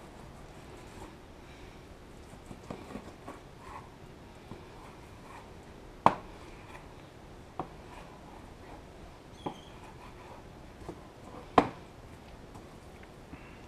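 Kitchen knife slicing raw rib eye steaks and knocking against a plastic cutting board: two sharp knocks, about halfway through and near the end, with a few fainter taps and quiet handling between.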